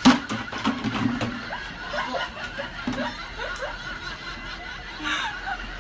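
People laughing in short bursts, with a sudden loud thump right at the start.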